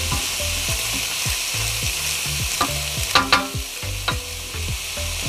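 Chicken, onion and mushroom sizzling in hot oil in a wok while a wooden spatula stirs and scrapes through them, with two sharp knocks about three seconds in.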